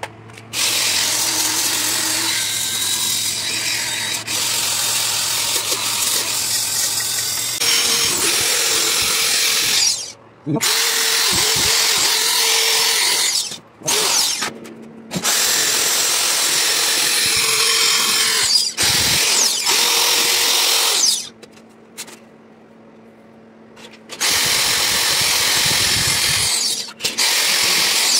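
Cordless drill spinning a wire cup brush against a copper sheet, scrubbing the surface clean for brazing or welding. It runs in several long bursts of up to about ten seconds, with short pauses between.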